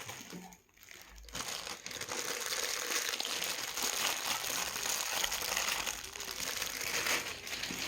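Continuous crinkling and rustling of handled material, starting about a second in and going on for about six seconds.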